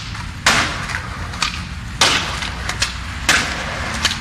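Skateboard sounds: three loud, sharp clacks of the board against the ground, about a second and a half apart, with lighter knocks between them over a steady rolling noise from the wheels.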